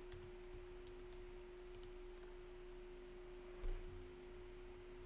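Quiet room tone under a steady faint hum at one pitch, with a couple of faint clicks near two seconds in and a single low thump a little past halfway.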